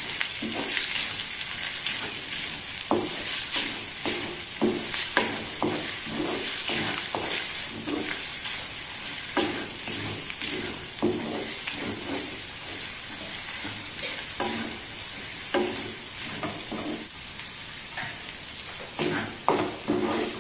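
Wooden spatula stirring and scraping inside a terracotta clay pot of ginger-garlic-green chilli paste, curry leaves and chillies frying in sesame oil. The oil sizzles steadily under repeated scraping strokes.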